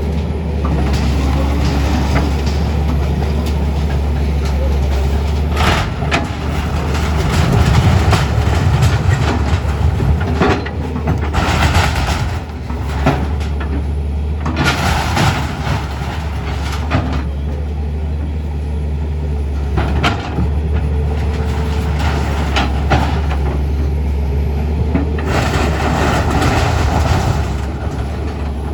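A heavy engine running steadily under many clanks, knocks and rattles, loudest around a third of the way in.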